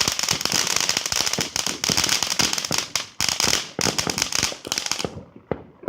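Consumer firework crackling: a dense, rapid string of sharp snapping pops over a hiss, which thins out about five seconds in and ends with a few scattered pops.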